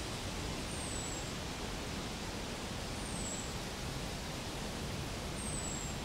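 Steady outdoor hiss, with a thin, high, falling whistle heard three times, about every two and a half seconds.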